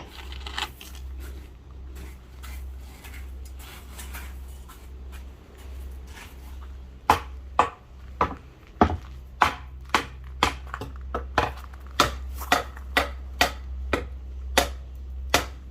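A child hammering nails: a hammer striking a nail in a steady run of sharp knocks, about two a second, starting about seven seconds in after a quieter spell of faint taps.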